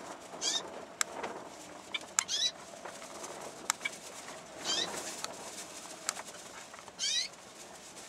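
Cockatiels calling: four short high chirps spaced over several seconds, each sliding down in pitch, with sharp clicks between them.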